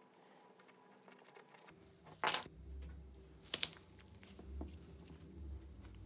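Handling noise while a steel crimp press part is wrapped in painter's tape: one sharp sound about two seconds in, a shorter double one a second later and a small one after that, over a faint low hum.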